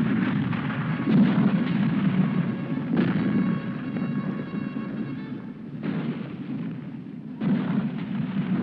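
Civil War battle sound effect: a continuous din of cannon and musket fire with a heavy low rumble. Fresh loud blasts come about three, six and seven and a half seconds in.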